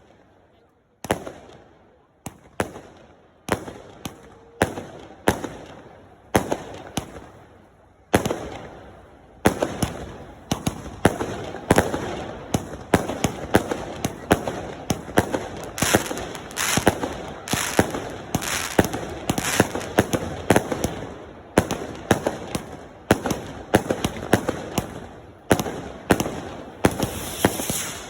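Fireworks going off: sharp bangs roughly once a second at first, turning into a rapid, continuous volley of bangs after about nine seconds.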